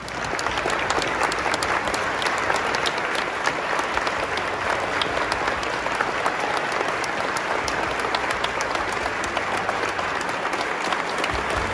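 Audience applauding: many hands clapping in a dense, steady patter that starts suddenly and keeps up.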